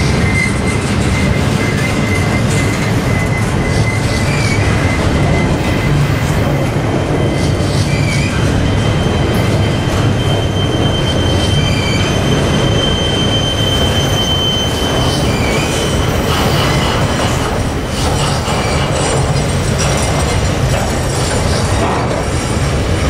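CSX double-stack intermodal freight cars rolling slowly past, a steady rumble of steel wheels on rail. Thin high wheel squeals come and go, the longest a held squeal around the middle.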